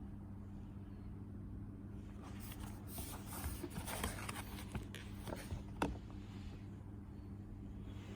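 A low, steady hum with scattered faint rustles and small clicks, one sharper click about six seconds in.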